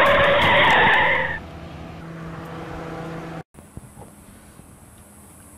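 Car tyres screeching under hard braking, loud for about a second and a half and then cutting off, leaving faint background.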